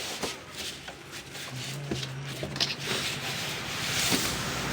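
Rubbing and scraping of a keyboard being pulled out of its thermocol (polystyrene foam) packing in the box, with scattered knocks and clicks, busier near the end.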